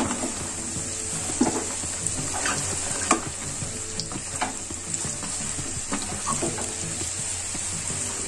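Cut okra sizzling as it fries in hot oil in a pan, with a spatula knocking and scraping against the pan every second or so.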